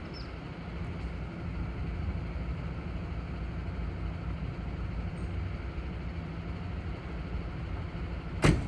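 MAN TGX 28.500 truck's six-cylinder diesel idling steadily, and the cab door slamming shut once near the end.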